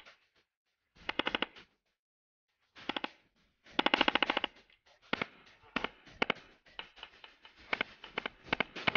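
Fully automatic AR-style carbine firing a series of short bursts of rapid shots. The longest burst, a bit under a second, comes about four seconds in; shorter bursts and single shots follow.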